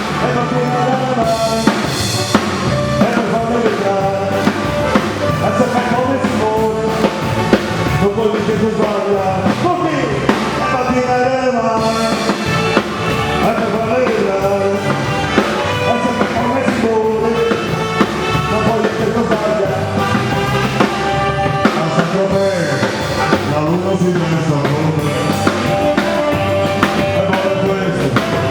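Upbeat song with a drum kit beat and a singing voice.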